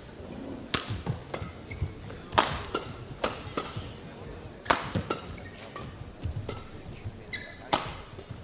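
Badminton rally: rackets striking the shuttlecock in a quick run of sharp hits, with shoes squeaking briefly on the court floor.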